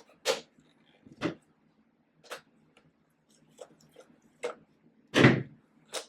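Irregular clicks and knocks of a screwdriver working screws out of a cordless sweeper's plastic housing while the housing is handled, with one louder knock about five seconds in.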